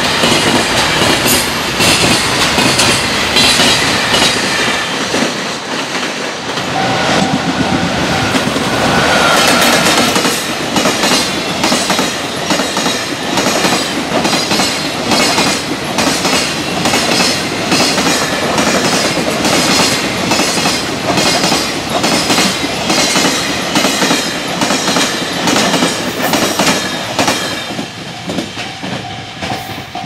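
Freight train running past, its wheels clattering over rail joints in a rapid, steady clickety-clack. The clatter dies away near the end.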